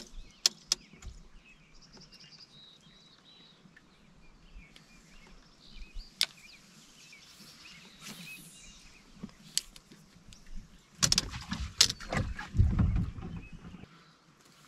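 Scattered knocks and clicks of handling in a small fishing boat, with a louder bout of bumping and rumbling about eleven seconds in.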